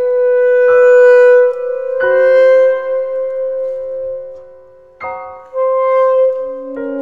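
Alto saxophone and grand piano playing a classical piece: the saxophone holds long notes while the piano strikes four chords, and near the end the saxophone drops to a lower held note.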